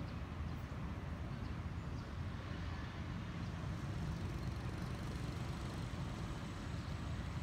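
Steady low rumble of city street traffic in the background, with no single vehicle standing out.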